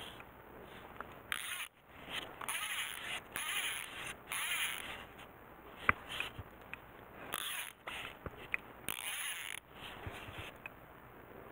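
Short, irregular bursts of rustling and scraping, with one sharp click about six seconds in.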